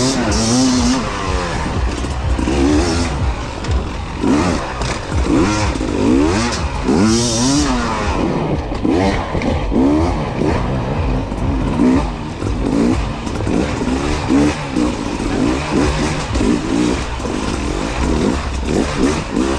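Two-stroke enduro motorcycle engine revving up and down over and over, the throttle opened and shut in quick bursts as the bike is ridden over rough ground.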